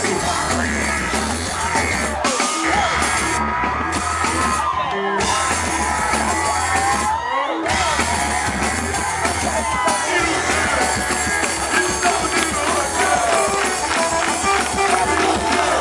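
Live rock band playing, with a crowd singing and shouting along. The bass drops out briefly a few times.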